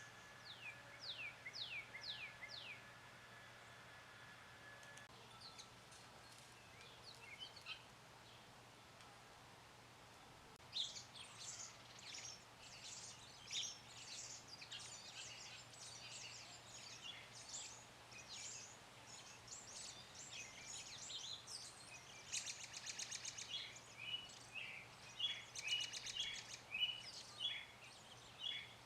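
Songbirds singing: five quick falling whistled notes near the start, then from about ten seconds in a busy chorus of short chirps with buzzy trills and repeated notes.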